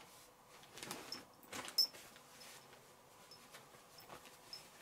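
Heavy denim jacket being handled and folded: soft fabric rustles and swishes, with a sharp click a little under two seconds in and a few light ticks afterwards.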